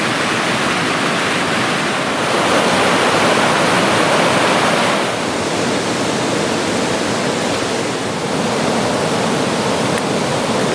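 Rocky river rushing steadily over rapids, a little louder for a few seconds in the middle.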